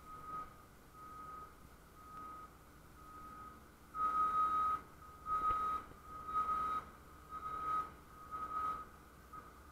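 A vehicle's reversing alarm beeping, a single high tone about once a second, growing louder about four seconds in.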